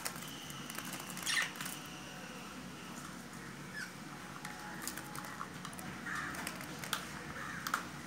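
A pet budgie playing: scattered small clicks and taps, with one short, louder call about a second and a half in and soft chirps near the end.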